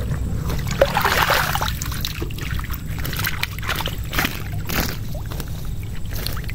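Water sloshing and streaming off a mesh keepnet holding caught tilapia as it is lifted out of shallow water. Irregular splashes and rustles sound over a steady low rumble.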